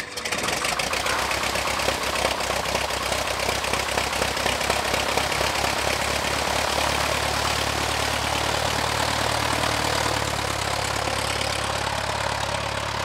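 A Cessna 172R's four-cylinder Lycoming engine and propeller running at idle just after start-up, with a fast, even beat. The note settles steadier about halfway through.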